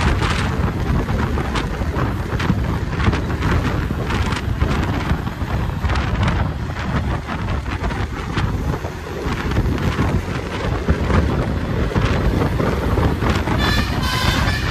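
Wind buffeting the microphone over the steady running noise of a moving vehicle. Near the end a vehicle horn with several tones starts to sound.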